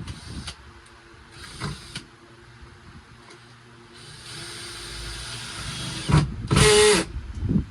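A small electric motor whirring in short bursts, the loudest burst near the end, with a steady hiss for about two seconds before it.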